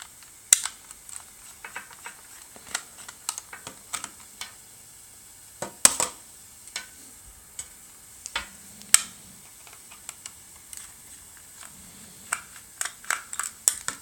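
Irregular small clicks and taps of the plastic shell and parts of a Logitech M570 trackball being handled during disassembly, with a few sharper knocks about half a second, six and nine seconds in.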